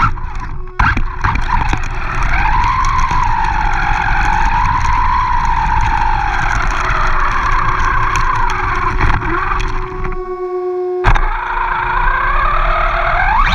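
RC monster truck driving fast over grass, heard from a camera mounted on the truck: a motor whine that rises and falls with speed over tyre and wind noise, with scattered knocks. About ten seconds in the tyre noise drops out for a moment, a sharp knock follows, and the whine rises again as the truck speeds up.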